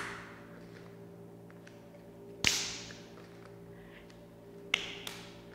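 Hand claps, a few sharp single slaps: the loudest about two and a half seconds in, then two more close together near the end. The claps are made under both raised legs in a seated exercise.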